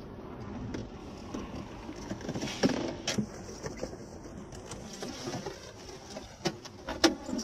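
Steady hum of a stopped car heard through a dashcam, with several sharp knocks and clicks; the loudest come about two and a half seconds in and near the end.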